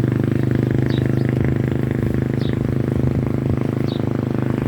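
An engine running steadily at a constant speed, with a loud, even drone. Short high squeaks recur about every second and a half over it.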